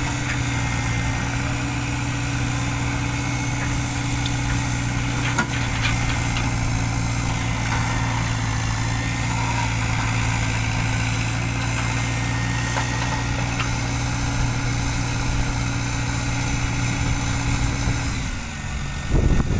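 Engine of heavy earth-moving machinery running steadily at idle, its hum dropping away near the end.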